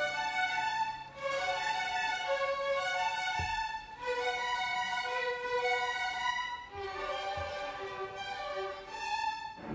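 Student string orchestra playing a slow melody of held notes, the violins carrying the tune in phrases with short breaks between them.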